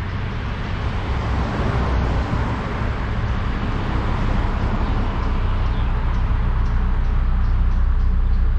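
Narrowboat's diesel engine running steadily at cruising speed, a low even throb. A broad hiss rides over it, swelling during the first few seconds.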